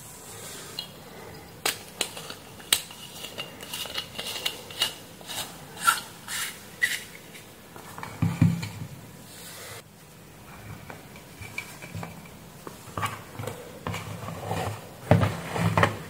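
Irregular small clicks, taps and rustles of wires and parts being handled and connected on a workbench, with a couple of louder knocks.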